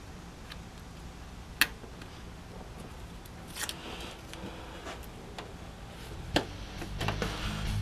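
Spark plug wire boots being pushed onto the coil packs by hand: a few sharp plastic clicks, the loudest about a second and a half in and another near the end, with softer ticks and handling noise between. Music comes in near the end.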